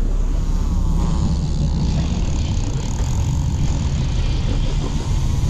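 Sportfishing boat's engines running with a steady low rumble.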